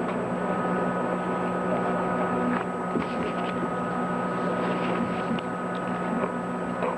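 Steady electrical hum and hiss from the recording and sound system, with a few faint knocks.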